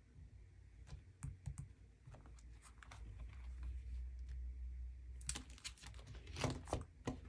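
Clear plastic sleeve pages of an A5 six-ring photocard binder being handled and turned: faint, scattered light clicks and taps, with a busier cluster of crinkly plastic clicks near the end.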